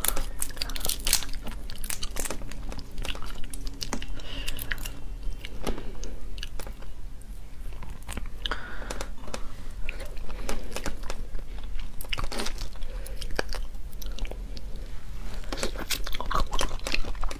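Close-miked shrimp shell crackling and clicking as it is peeled by hand, mixed with wet chewing and mouth sounds; near the end the peeled shrimp is bitten into and chewed.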